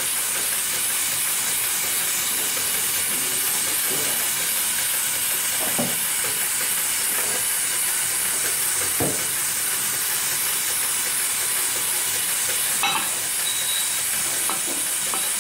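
Industrial sewing machine running steadily as it stitches through a stack of cotton buffing-wheel cloth, heard as a steady high hiss with a few faint knocks.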